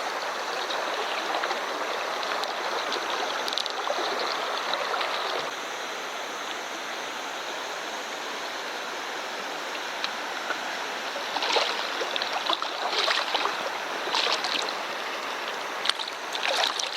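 River water rushing steadily, with a few short splashes in the second half.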